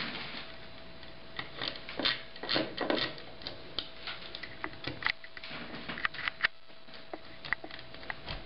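Irregular small clicks and light knocks of clamp flanges and screws being fitted onto the aluminium extrusion of a linear actuator axis, over a faint steady hum.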